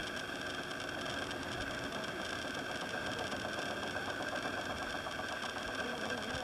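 A small motor running steadily, with a constant high tone over it.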